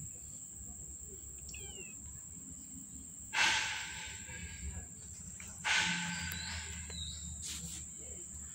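A steady high-pitched insect drone, with a few short bird chirps. Two sudden loud hiss-like noises cut in about a third and two thirds of the way through, each fading over about a second.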